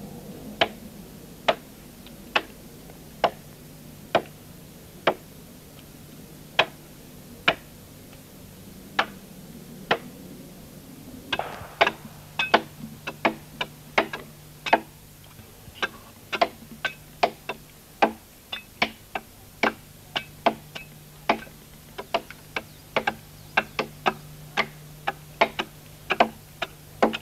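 Axe blows chopping into an oak log to hollow out a dugout boat, each a sharp knock. The strokes come about once a second at first, then from about eleven seconds in grow quicker and uneven, some landing close together.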